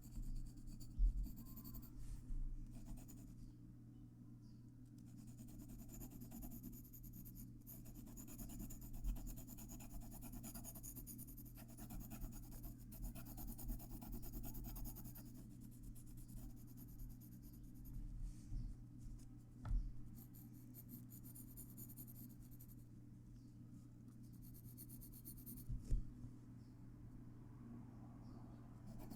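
Graphite pencil strokes scratching across drawing paper in stretches of shading, over a steady low hum, with a few dull thumps, the loudest about a second in and twice later on.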